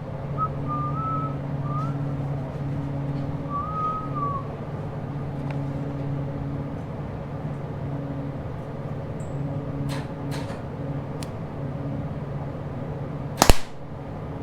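Steady low electrical hum of shop equipment that swells and fades, with two short whistled notes in the first few seconds. A few light clicks follow, and near the end there is one sharp, loud metal clank.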